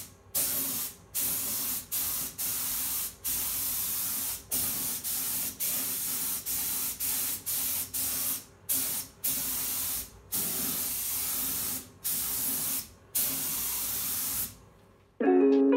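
Compressed-air paint spray gun with a paint cup spraying paint onto steel wheel rims: repeated short bursts of hiss, roughly one a second, as the trigger is pulled and released between passes. The spraying stops about a second before the end.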